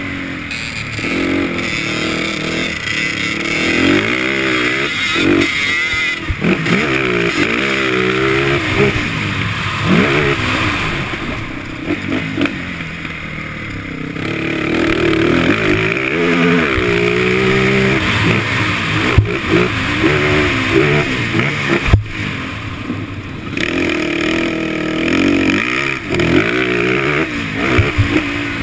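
Dirt bike engine heard from on board, revving up and dropping back again and again as the rider accelerates, shifts and backs off around a motocross track. Wind rushes across the microphone throughout, and there are a few sharp knocks from bumps.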